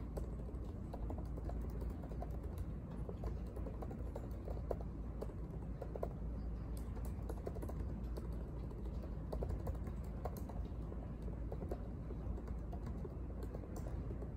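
Typing on a laptop keyboard: quick, irregular key clicks over a steady low background hum.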